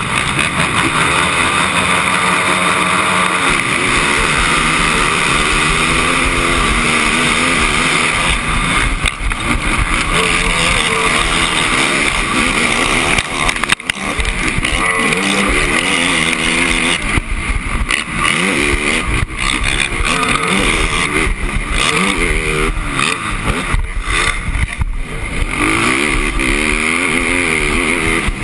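Racing ATV engine revving hard from a race start, its pitch rising and falling repeatedly through gear changes and throttle, with other quads close by and heavy wind rush on a helmet-mounted camera. The engine drops off briefly about halfway through.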